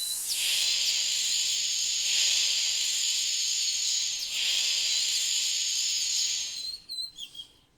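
Snake hissing: one long 'sss' that swells three times and then fades. A few short bird chirps come near the end.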